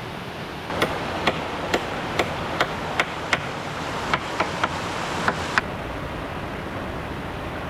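A series of about a dozen sharp tool strikes on bamboo, roughly two a second and stopping a little past halfway, over a steady rush of water.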